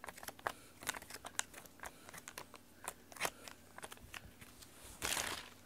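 Rubber-band-powered butterfly toy crinkling and clicking in the fingers as its wings and rubber band are handled and wound, with a louder rustle about five seconds in.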